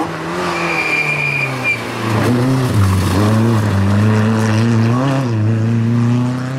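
Rear-wheel-drive historic rally car's engine running hard as the car comes through a corner on a loose road. The revs dip briefly about two and a half seconds in, then hold high and steady.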